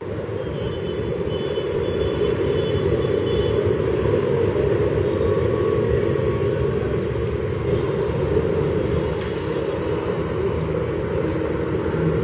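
Twin WDG-3A ALCO diesel locomotives approaching, their engines giving a steady low rumble that swells over the first couple of seconds.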